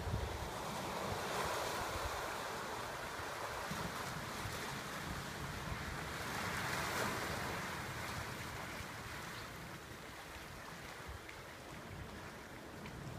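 Sea surf washing into a rocky gully, swelling about a second in and again around seven seconds in, with wind buffeting the microphone.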